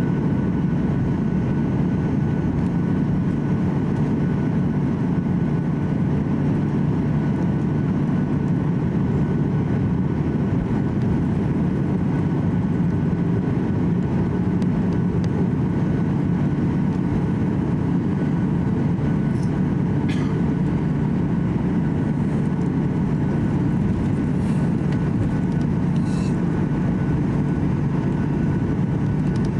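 Steady cabin noise of a Boeing 737-800 taxiing on the ground: a low, even hum from its CFM56 engines at idle and the rolling airframe, with a faint steady whine above it.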